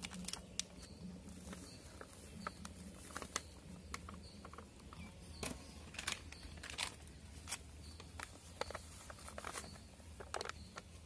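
Irregular pops and crackles from a pot of milk boiling over a wood fire.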